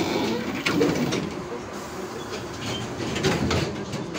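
Trolleybus driving, heard from inside the cabin: a steady running noise with irregular knocks and rattles from the body and fittings.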